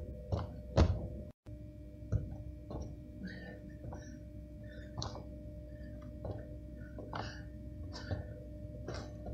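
Feet in socks landing on gym mats: three heavy two-footed jump landings in the first second. After a brief break comes a run of lighter, quicker thuds as the jumper bounces from foot to foot, over a faint steady hum.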